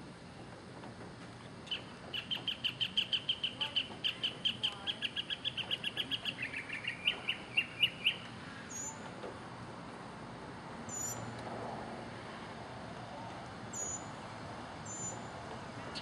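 Northern mockingbird singing a rapid run of repeated notes, about six a second for some six seconds, that steps down a little in pitch partway through, then four short, very high notes spread over the rest.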